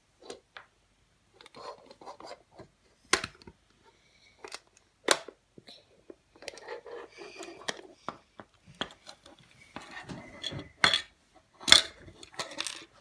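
Small plastic toy shell being handled and opened by hand: scattered sharp plastic clicks and taps with soft rustling in between.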